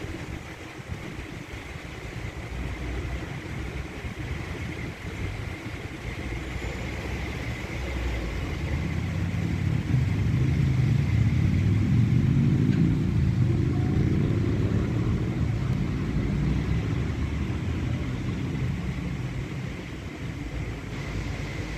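Automatic conveyor car wash running: tall rotating side brushes scrubbing along a car's flank under water spray. The low rumble of the machinery grows louder about halfway through, where a faint rising hum comes in, then settles back.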